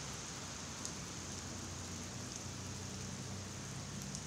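Steady outdoor background hiss with a low, steady hum beneath it and two faint ticks, about a second in and near the end.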